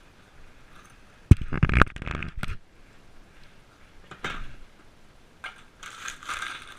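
Kitchen things being handled on a counter: a sharp knock about a second in, then a second of clattering, another knock around the middle and more clatter near the end. It is recorded through a GoPro's hard waterproof case.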